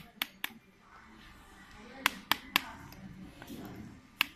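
Sharp metal taps of a hand tool striking a brushless motor's stator assembly during disassembly: two quick taps at the start, then three more a quarter second apart a couple of seconds in.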